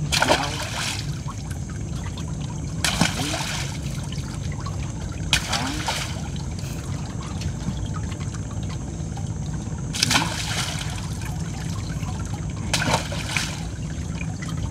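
Water splashing and running off in short bursts every two to three seconds, like a wet fishing net being hauled up hand over hand, over a steady low hum.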